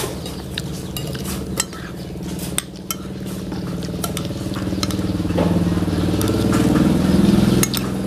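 Spoons clinking and scraping on ceramic plates during a meal, under a low droning hum that grows louder to its peak about seven seconds in, then drops.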